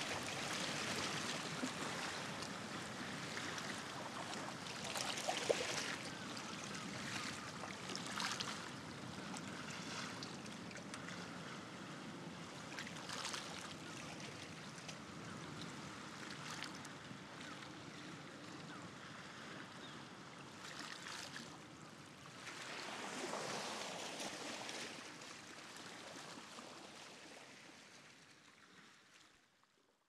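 Ocean surf washing on a beach: a steady wash with several brief swells as waves break, fading out near the end.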